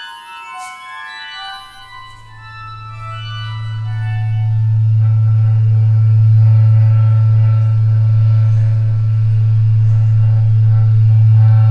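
Film soundtrack music with an organ-like keyboard sound. A run of short, high keyboard notes fades out in the first two seconds. A loud, low drone then swells in and holds steady, with long chords sustained above it.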